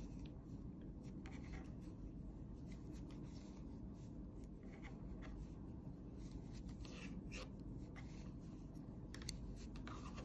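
Faint scattered clicks and rubbing of wooden knitting needles and yarn as knit stitches are worked, over a steady low background hum.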